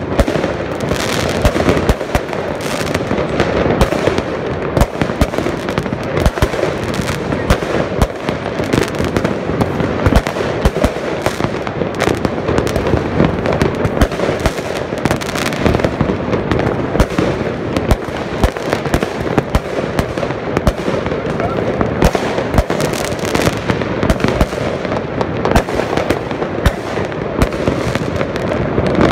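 Fireworks and firecrackers going off all over a city at once: a dense, unbroken barrage of bangs and crackling with no pause.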